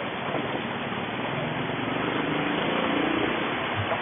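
Steady engine and road noise of a car moving slowly in street traffic, heard from inside the car, with a low engine hum that grows a little louder about halfway through.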